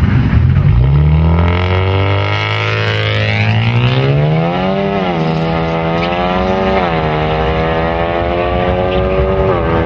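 Turbocharged 10th-gen Honda Accord engine accelerating hard through the gears. The pitch climbs steadily, then drops at an upshift about five seconds in, climbs again, drops at a second shift near seven seconds, and drops at a third shift near the end.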